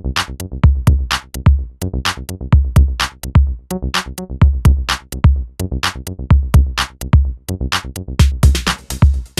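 Electronic music with a steady drum-machine beat: deep kick drums and short sharp high hits over sustained low synth notes.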